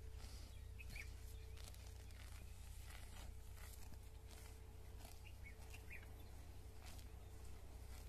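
Cows grazing, tearing and cropping mouthfuls of grass and weeds in short, irregular rips. Faint bird chirps come in a few times.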